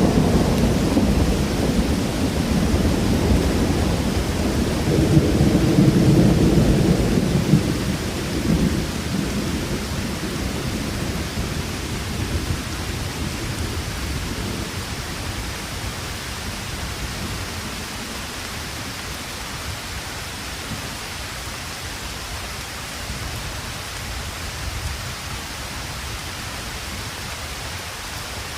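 Steady rain hissing, with a long low rumble of thunder that swells about six seconds in and then dies away, leaving the rain alone for the rest.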